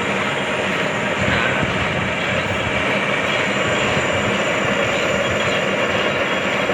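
Workshop machinery running steadily, an unbroken mechanical noise at a constant level.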